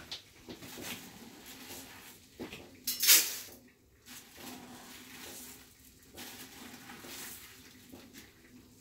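Kitchen handling sounds: dishes and utensils being moved, with scattered clicks and one short, loud clattering noise about three seconds in.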